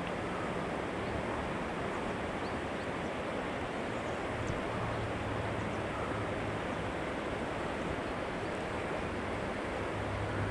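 Steady rushing of a fast, shallow river flowing over stones.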